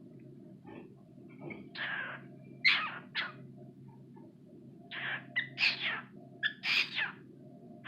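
Cockatiel calling: about eight short, scratchy calls in two clusters, the first starting about two seconds in, over a steady low background hum.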